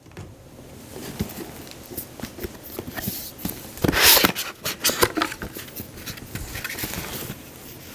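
A cardboard box and its packaging being opened and handled by hand: light scattered rustling and small clicks, with one louder rasp of sliding cardboard or paper about four seconds in.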